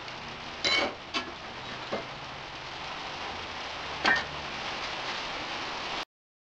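Steady rain falling, with a few sharp clicks and clinks over it, one with a brief ring; it cuts off suddenly near the end.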